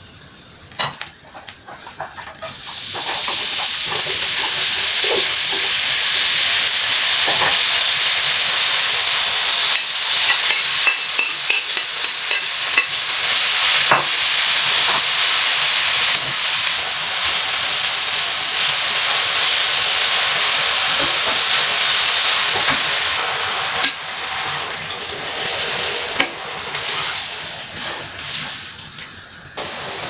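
Chopped leafy greens and onion sizzling loudly in a frying pan over a gas flame. The sizzle starts a couple of seconds in, after a few clinks and scrapes of a fork against a pan, and eases off and turns patchy near the end.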